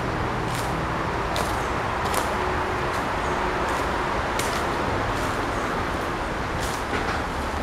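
Steady hum of city road traffic beyond the wall. Short, sharp high crackles come every second or so.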